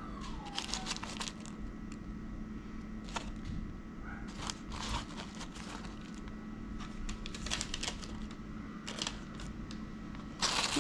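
Plastic film lining a bowl crinkling in scattered short crackles as fingers pick out crumbled cooked sausage, over a faint steady hum. The crinkling grows louder near the end.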